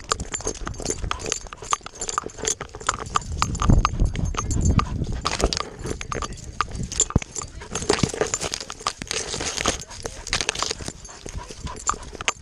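A dog on the move, heard from a camera strapped to its body: dense, uneven clicks and knocks as the mount jostles and its paws hit dry grass and mud, with a low rumble about four seconds in.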